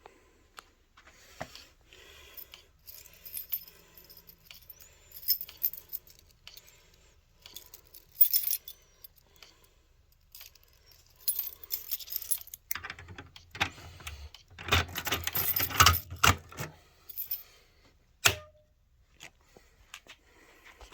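A bunch of keys jangling and clicking in irregular bursts, with a denser, louder spell of rattling a little past two-thirds of the way through.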